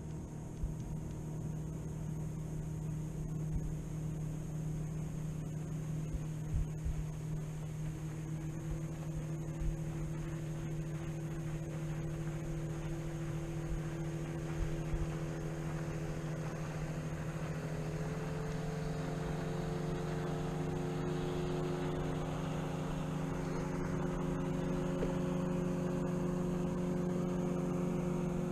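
Small electric motor driving a fishing kayak: a steady hum that steps up in pitch twice, about eight seconds in and again around eighteen seconds, as the speed is raised. Water rushes along the hull and grows louder as the kayak speeds up.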